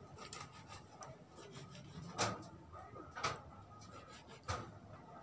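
Faint knife work on fish at a cutting board: soft scraping and small clicks, with three sharp knocks about a second apart in the second half.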